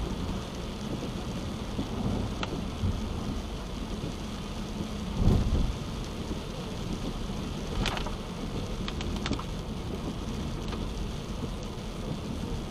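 Rain on a moving car and the low rumble and hiss of tyres on wet pavement, heard from inside the cabin. There is one louder low thump about five seconds in, and a few sharp ticks later on.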